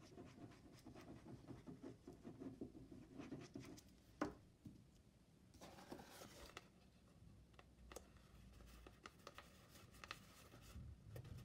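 Faint scratching and rustling of paper and card being handled as glue is dabbed on a paper label and the label is pressed onto a cardboard box, with one sharp click about four seconds in.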